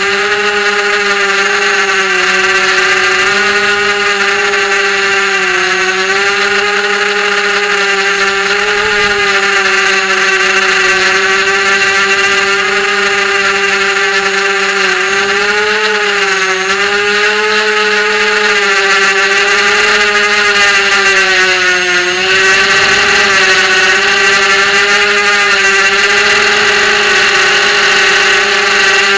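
FPV racing quadcopter's motors and propellers whining steadily, the pitch wavering up and down with the throttle.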